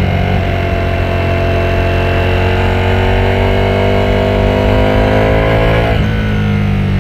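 Ducati Panigale V4S's V4 engine pulling under load while riding, its pitch rising slowly as the bike accelerates in one gear. Near the end the pitch drops suddenly with an upshift, then the engine carries on in the next gear.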